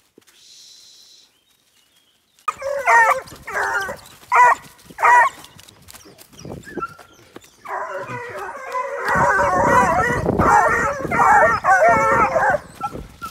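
Young hunting hounds, about four months old, baying and yelping in voice: a few separate bays from about two and a half seconds in, then a dense overlapping chorus of several dogs from about eight seconds. Low thumping handling noise runs under the chorus from about nine seconds.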